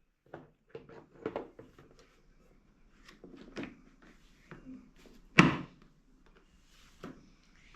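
Plastic handling noises and a scatter of small clicks and knocks, then one loud snap about five seconds in, as the bag-compartment cover of a Bissell upright vacuum cleaner is fitted back on.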